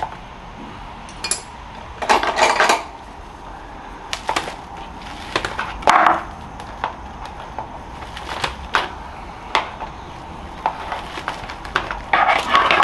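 Pliers twisting tie-down wire to anchor a tree in a plastic bonsai pot: scattered clicks and clinks of metal on wire and plastic, with longer scraping rustles about two seconds in, around six seconds, and near the end.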